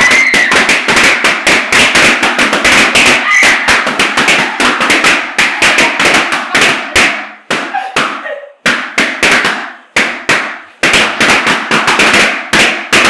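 Many latex balloons bursting in quick succession as children press and jump on them, several sharp pops a second. The pops thin out for a few seconds past the middle, then come thick again.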